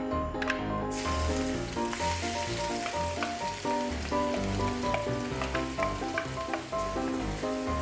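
Food sizzling as it frying in hot oil, coming in suddenly about a second in and going on steadily, over background music.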